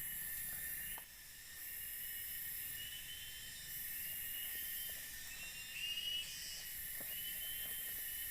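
Chorus of forest insects: a shrill high-pitched drone that swells and fades every second or two, over repeated short chirping phrases, with a few faint clicks.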